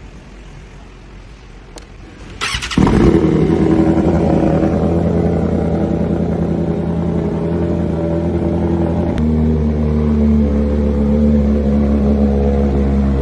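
BMW S1000RR inline-four with an Austin Racing exhaust being started: the starter cranks briefly about two and a half seconds in and the engine fires, then idles loudly and steadily. About nine seconds in the idle note changes abruptly, with a click.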